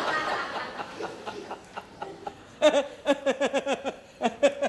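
A man laughing. It begins as a looser spell of laughter, and from about two and a half seconds in becomes loud, quick, repeated 'ha-ha' bursts, each rising and falling in pitch.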